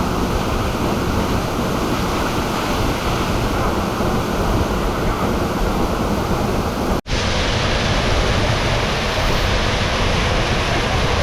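Waterfall rushing: a loud, steady roar of falling water. It cuts out for an instant about seven seconds in and resumes slightly duller.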